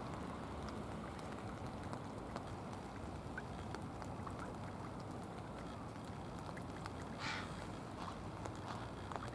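Steady, low outdoor background noise at the water's edge, with faint scattered ticks and one brief, sharper sound about seven seconds in.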